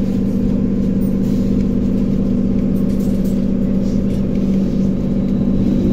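Trolleybus interior with a steady electrical hum from its onboard equipment while it stands. Right at the end, the traction motor's whine begins rising in pitch as it pulls away.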